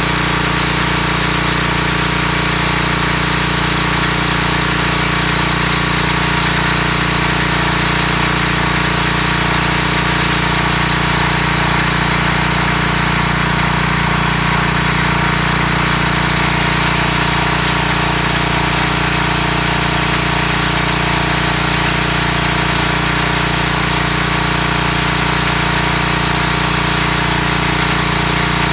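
Small gasoline engine of a pressure washer running steadily at constant speed under load.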